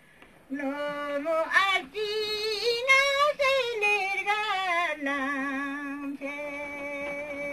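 An elderly woman singing a Ladakhi song unaccompanied, her voice wavering in pitch. She starts about half a second in and ends on a long held note from about five seconds in.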